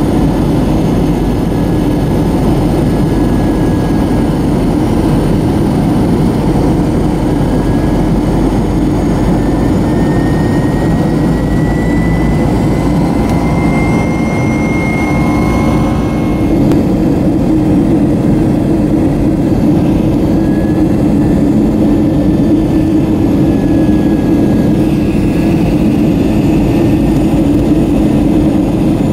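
Jet airliner cabin noise: a steady rumble of engines and airflow heard inside the cabin during the descent to landing. A faint high whine rises slowly in pitch about halfway through.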